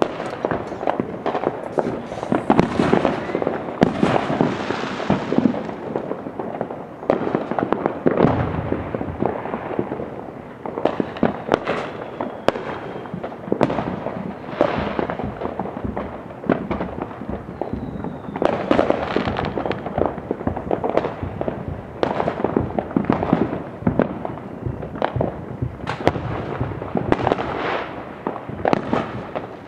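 Many fireworks going off at once, a near-constant run of overlapping pops and bangs, with stretches of denser crackling.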